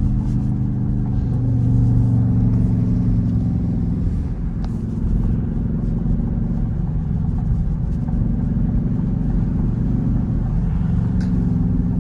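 Jeep SRT8's straight-piped V8 exhaust running at a steady cruise, a deep, even drone with the engine pitch holding fairly level.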